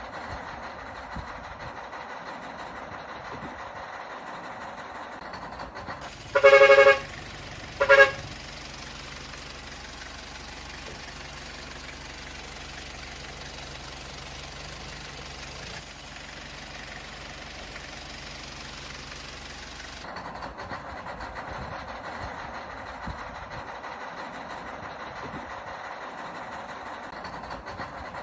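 A truck horn honks twice, a long blast about six seconds in and a short one just over a second later. A steady low engine rumble starts with the first honk and stops about twenty seconds in, over a constant hissy background.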